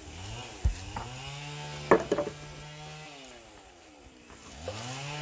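Chainsaw cutting firewood: the engine revs up, runs steadily, drops back toward idle, then revs up again near the end. A few sharp knocks sound along the way.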